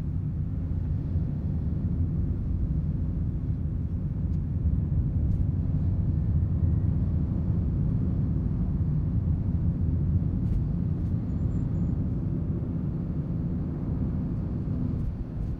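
Steady low rumble of a car's engine and tyres on the road while driving at city speed.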